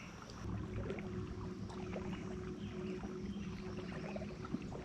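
Motorboat engine running with a steady hum, starting about half a second in.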